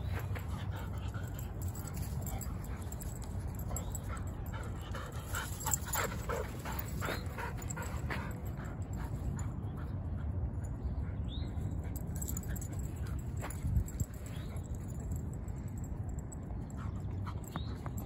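Dogs panting and scuffling about on dry dirt while fetching tennis balls, with scattered short taps over a steady low rumble.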